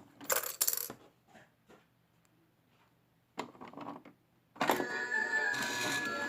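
A few short clicks and taps, then music starts suddenly about four and a half seconds in and keeps playing with steady held tones.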